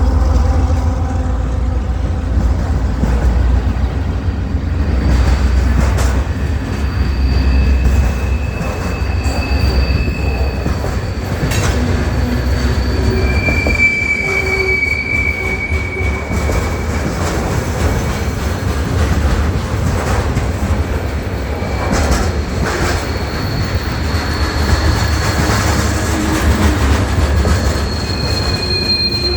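A train running with a steady low rumble, its wheels squealing on the rails in long, high, steady tones several times, with a few sharp clicks.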